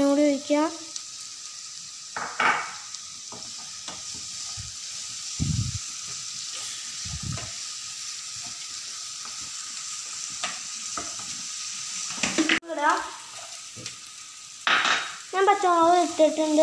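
Onions frying in oil in a non-stick pan with a steady faint sizzle, while a wooden spatula stirs and scrapes against the pan with scattered clicks. A loud warbling pitched tone sounds briefly at the start and again near the end.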